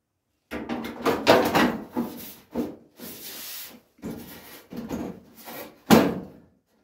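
Ford Escort Mk1 steel front wing being offered back up to the car body, scraping and knocking against the metal in a run of irregular rubs and clunks. The loudest knocks come about a second in and shortly before the end.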